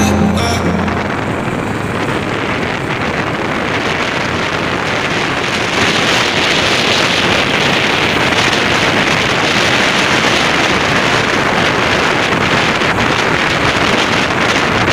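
Wind rushing over the microphone on a moving motorcycle, mixed with road and engine noise: a steady, loud rush that grows a little louder about six seconds in.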